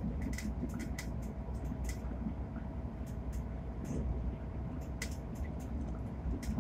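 Inside a coach of a Hitachi Class 802 IET train running at speed: a steady low rumble with a faint steady hum, broken by sharp rattles from the coach's fittings, several a second at irregular spacing.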